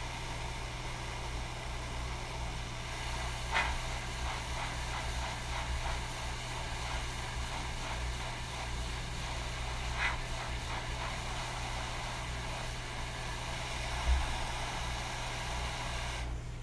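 Hot air rework station blowing steadily on a circuit board chip, a hiss over a low hum, to melt the solder beneath it. The airflow cuts off near the end. A few faint clicks come in between.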